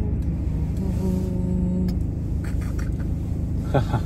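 Steady low rumble of a car travelling on the road, heard from inside the cabin.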